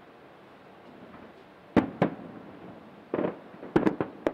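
Fireworks going off: a faint hiss at first, then sharp bangs, two close together a little under two seconds in, a short burst about three seconds in and several more bangs near the end.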